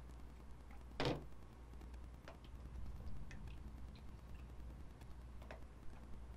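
Light knocks and ticks of plastic measuring beakers and utensils while soap batter is poured into the beakers: one sharp knock about a second in, then scattered faint clicks over a low steady hum.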